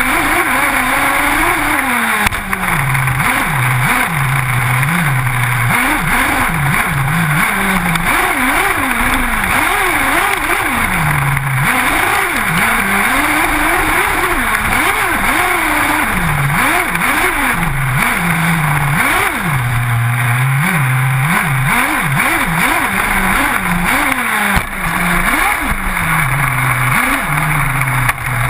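Two-stroke engine of a large-scale RC off-road buggy, heard from the car itself, revving up and dropping back over and over as it is driven hard on dirt, with a steady rush of tyre, gravel and wind noise underneath.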